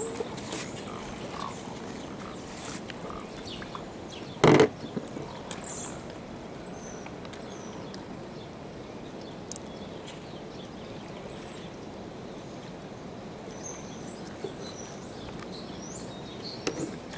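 Birds chirping now and then over a steady outdoor hiss, with one loud thump about four and a half seconds in.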